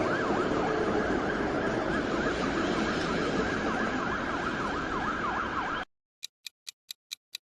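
Ambulance siren in a fast yelp, its pitch sweeping rapidly up and down. It cuts off suddenly about six seconds in, and a clock-like ticking follows at about five ticks a second.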